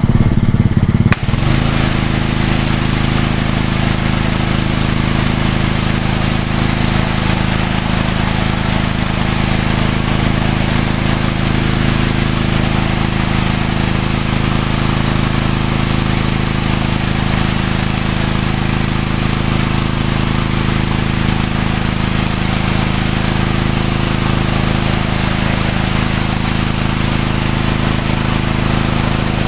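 Ryobi 3100 PSI gas pressure washer with a Honda GCV190 engine. About a second in the trigger is squeezed: the engine takes the load and a 25-degree high-pressure water jet starts spraying the patio with a loud, steady hiss over the engine's running note.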